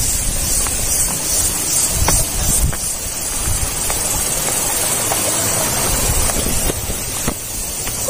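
Wind buffeting the microphone in an uneven low rumble, over a steady rushing hiss of the waterfall.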